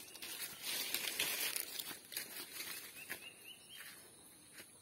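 Footsteps crunching and rustling through dry leaves and fallen fronds on a forest path, dense and loudest for the first two seconds, then thinning to lighter, sparser rustles.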